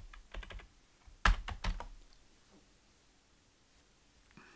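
A few keystrokes on a computer keyboard in the first two seconds, the loudest about a second in.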